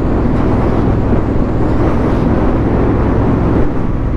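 Honda Africa Twin CRF1100L's parallel-twin engine running steadily on the move, under a continuous rushing hiss.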